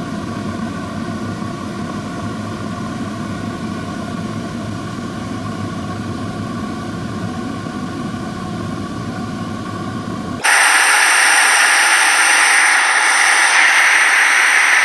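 Diesel-fired furnace burning, its burner air blown in by a vacuum cleaner: a steady, loud rushing roar with a low rumble. About ten seconds in the sound changes suddenly to a louder, higher-pitched hiss with the low rumble gone.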